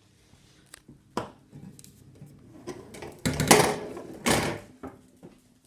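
Handling noises from vacuum parts being moved about: a sharp click about a second in, then louder rattling and scraping twice, around three and four seconds in.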